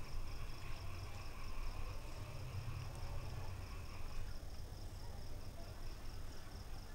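Faint steady high-pitched trill in the background over a low hum, with no distinct events.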